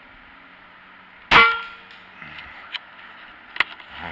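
A single shot from a Benjamin Armada .22 pre-charged pneumatic air rifle: one sharp crack about a second in that dies away quickly, followed later by a few faint clicks.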